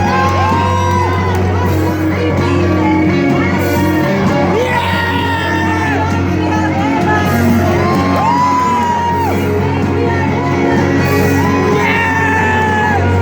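Live band playing a pop-rock song in a hall, with a voice singing long held notes that bend at the ends over a steady bass, and shouts and whoops from the audience.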